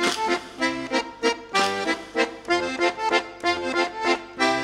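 Instrumental background music with evenly pulsed chords, about three a second.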